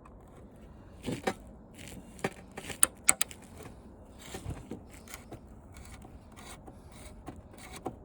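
Hand screwdriver turning out a screw from an old TV's plastic back cover: scattered sharp clicks and scraping, with a few louder snaps about a second in and around three seconds in, then lighter ticks.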